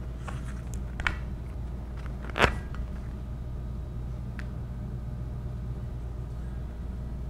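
A few short clicks and knocks of a metal valve diaphragm plate and its parts being unscrewed and handled, the loudest about two and a half seconds in, over a steady low hum.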